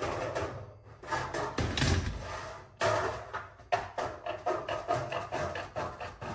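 Aviation snips cutting sheet metal: a run of short crunching cuts, several a second, with a heavier rustle and clatter of the sheet being handled about two seconds in.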